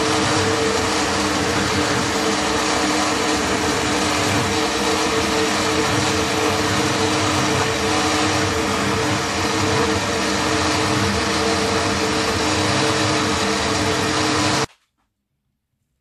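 Electric countertop blender running steadily, grinding a thick red chili and garlic paste, a constant motor hum with a high whine over it. The motor cuts off suddenly near the end.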